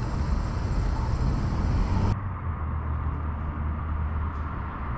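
Outdoor street ambience with a steady rumble of traffic noise. About two seconds in it cuts abruptly to a duller, muffled low hum.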